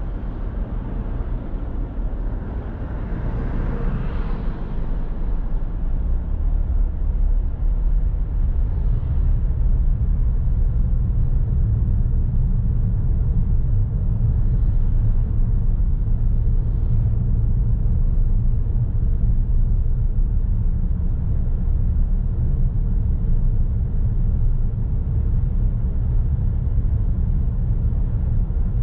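Steady low road and engine rumble of a car driving on city streets, picked up by a vehicle-mounted recorder, growing louder about five seconds in. A brief swell of hiss comes around three to four seconds in.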